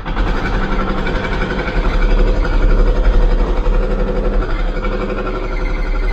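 Hydraulic breaker on an excavator hammering concrete in rapid, continuous blows, heard from inside the cab over the diesel engine running under load. It starts abruptly.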